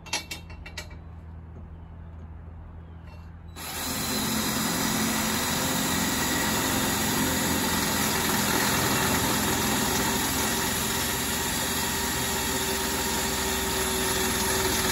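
Electric drill running steadily, starting a hole through the outrigger's runner rail. It starts about three and a half seconds in, after a few light clicks, and keeps running to near the end.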